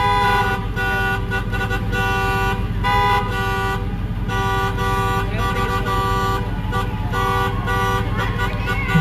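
Many car horns honking at once: overlapping long blasts of different pitches that keep starting and stopping, over the steady low rumble of slow-moving traffic.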